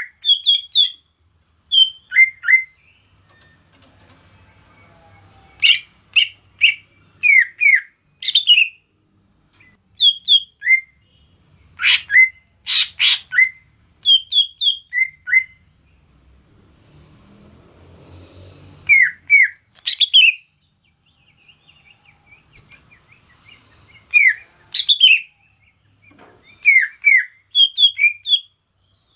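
Greater green leafbird (cucak ijo) calling in short, clear whistled notes in quick clusters of two to four, many sliding down in pitch, with gaps of a few seconds between clusters.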